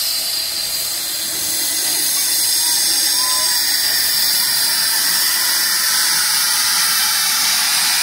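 Saddle-tank steam locomotive letting off steam in a loud, steady hiss that builds over the first second or so and then holds.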